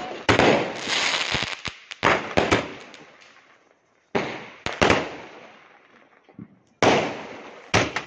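Fireworks bursting overhead: about seven sharp bangs at uneven intervals, each followed by a fading hiss of sparks.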